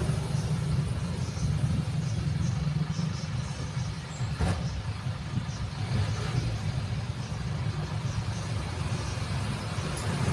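Steady low rumble of a motor vehicle engine running, with a brief click about four and a half seconds in.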